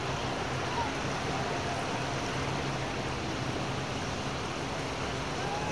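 Ocean inlet's tidal current rushing out at full force on the ebb tide: a steady, even rush of water like a white-water river rapid.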